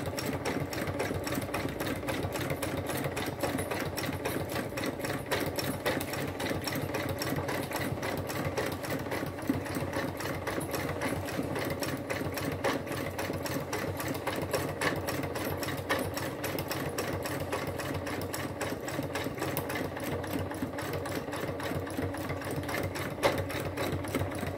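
Sewing machine running at a steady speed during free-motion stitching, the needle going up and down in a fast, even clatter.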